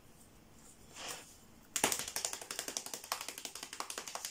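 A small folded paper slip being unfolded by hand: a brief rustle about a second in, then from about two seconds in a fast, continuous run of crisp paper crackles.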